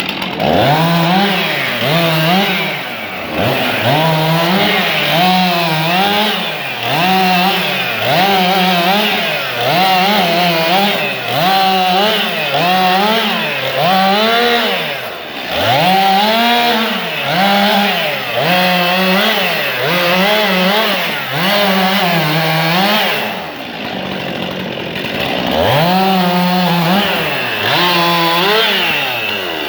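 Stihl MS 261 C two-stroke chainsaw running hard, its engine pitch rising and falling about once a second as the throttle is worked or the chain is loaded. It holds a steadier, lower note for a couple of seconds about two-thirds of the way in before the swings resume.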